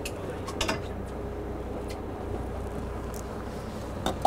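Boat engine running with a steady low hum, with a few sharp clicks and knocks of fishing gear being handled on board.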